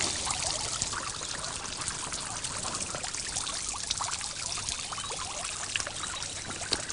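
Garden pond fountain, water trickling and splashing steadily into the pond.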